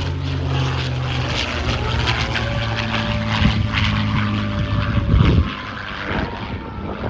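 Single-engine piston propeller aircraft flying a display pass, its engine note rising and then falling in pitch as it goes by, loudest about five seconds in.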